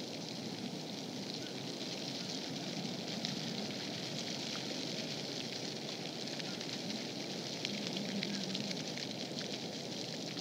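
Steady hiss with fine crackling running throughout, outdoor background noise with no distinct event standing out.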